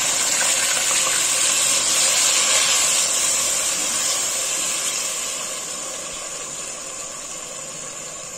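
Water poured in a steady stream from a cup onto sugar and melted ghee in a hot pot, splashing, with a high hiss under it. The pouring sound fades over the second half as the water is stirred in.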